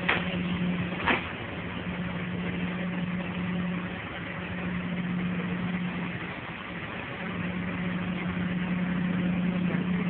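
Subway car interior noise: a steady hum with one constant tone over a rushing haze, the tone dropping out for about a second two-thirds of the way through. A single sharp click about a second in.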